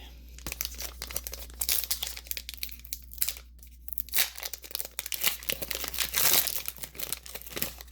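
Foil Pokémon booster pack wrapper being torn open and crinkled: a string of crackles, with a longer rustle about six seconds in.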